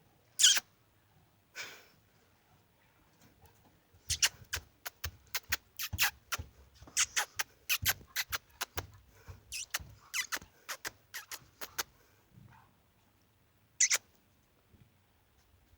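A person's mouth noises: short, sharp squeaks and clicks, one loud one about half a second in, then a quick irregular run of them from about four seconds to twelve seconds in, and another single loud one near the end.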